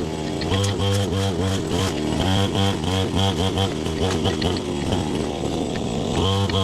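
Background instrumental music: a quick melodic figure repeating over a steady low pulse.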